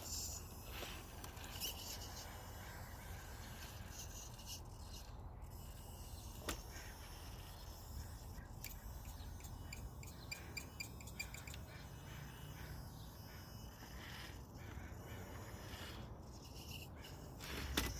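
Outdoor ambience with birds calling over a steady low rumble, with a quick run of short chirps around the middle.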